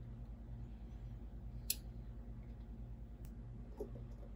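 Wire cutters snipping through the thin sheet-metal frame of an iPad: one sharp snip about one and a half seconds in, then a couple of fainter clicks near the end. A steady low electrical hum runs underneath.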